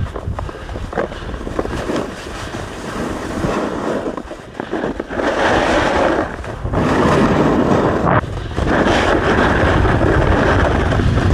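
Wind buffeting the microphone while riding down a ski slope: a continuous rushing noise that grows louder about halfway through, with a couple of brief dips.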